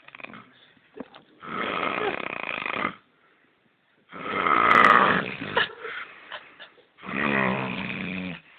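A man snoring loudly: three long snores about three seconds apart, each lasting over a second. The uploader likens the snoring to an old or broken-down truck.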